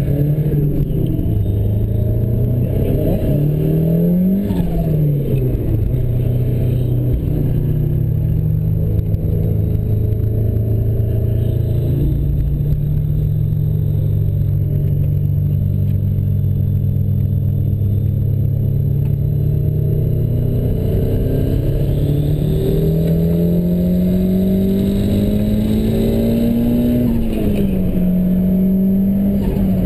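Ford Sierra Cosworth's turbocharged 2.0-litre four-cylinder engine heard from inside the cabin, pulling hard on track. Its note climbs and drops sharply about four seconds in, holds steady through a long middle stretch, then climbs again and drops near the end.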